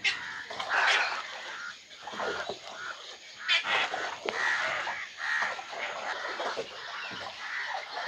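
Many waterbirds in a nesting colony calling at once: a busy, irregular, overlapping chorus of calls, with louder calls about a second in and again a little past the middle.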